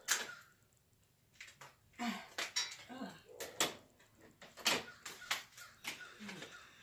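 Irregular light clinks and clicks of hard objects being handled, about a dozen sharp knocks spread over several seconds with quiet gaps between.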